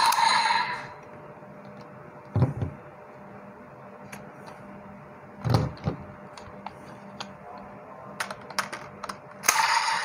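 Hard plastic clicks and knocks of a DX Monster Raise Buckle being unclipped from a DX Desire Driver toy belt and snapped into its other slot: single knocks about 2.5 and 5.5 seconds in, then a quick run of clicks near the end. About half a second before the end, the belt's electronic sound effects and music start playing.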